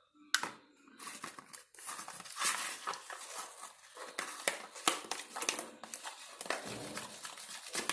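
Homemade shampoo-and-glue slime being squished and worked, a steady run of irregular wet crackles and clicks as freshly added activator is mixed in.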